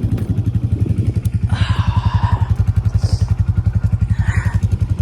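John Deere 4440 tractor's six-cylinder diesel engine running with an even, rapid low pulse, just restarted after nearly stalling in the cold. A brief clatter rises over it about a second and a half in and again near the end.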